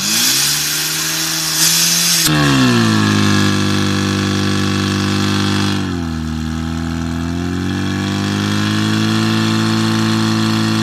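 Portable fire pump's engine running hard, with a loud hiss for the first two seconds. Its revs climb sharply at about two seconds in, dip briefly around six seconds and rise again, while it pumps water out through the attack hoses.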